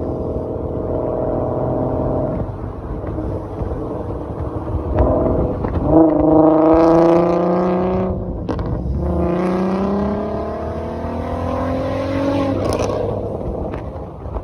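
VW Golf IV R32's 3.2-litre VR6 engine running, then accelerating hard with its pitch rising, breaking off briefly at a gear change about eight seconds in and rising again. A sharp crack comes near the end.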